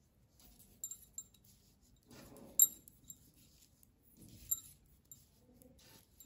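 Knitting needles clicking against each other as a row of plain stitches is knitted: a few light clicks with a brief high ring, the sharpest about two and a half seconds in, between soft rustles of wool.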